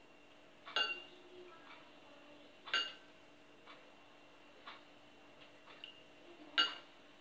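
Metal teaspoon clinking against a glass bowl as milk is scooped out and stirred into a well of flour. There are three sharp ringing clinks, and the last, near the end, is the loudest.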